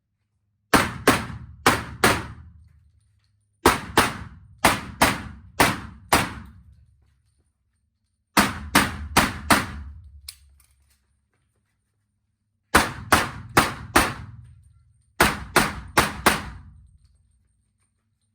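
Handgun fired in five quick strings of several shots each, with short pauses between the strings, shooting an IPSC course of fire after the start signal.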